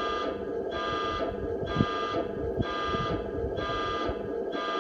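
Sound unit of a 5-inch gauge battery-electric model Class 66 diesel locomotive playing a buzzing warning tone that pulses about once a second, over a steady lower drone from the recorded engine sound.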